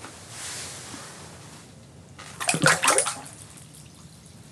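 A walleye dropped back into an ice-fishing hole, splashing loudly in the water for about a second, a little over two seconds in. A softer hiss comes before it.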